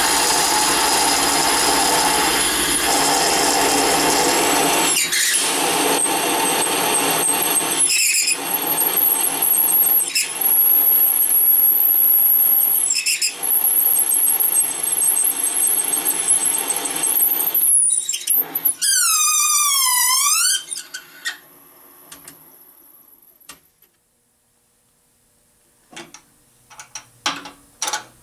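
Serdi 100 seat-and-guide machine's spindle machining an exhaust valve guide bore in a cast iron Plymouth 318 poly-dome cylinder head: a steady cutting noise with a high-pitched squeal that eases off briefly a few times. A little past the middle it winds down with a whine that dips and rises in pitch. A few light clicks follow near the end as the tool is handled.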